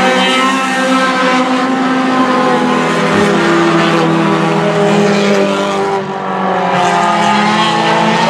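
Several four-cylinder race cars running hard together on a short oval, their overlapping engine notes rising and falling as they go through the turns. The sound dips briefly about six seconds in.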